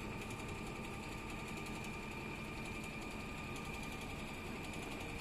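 Richpeace computerized heating-wire sewing machine running steadily as it stitches on grid fabric: a fast, even needle clatter with a steady high whine.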